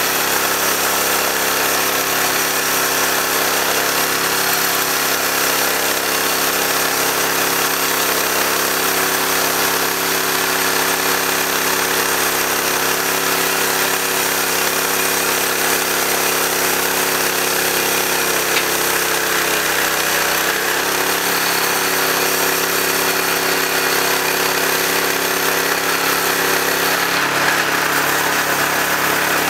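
Portable bandsaw mill sawing through a log, its engine and band blade running steadily under load, with a slight dip in pitch about two-thirds of the way in. The blade is kind of dull. The engine begins to wind down at the very end.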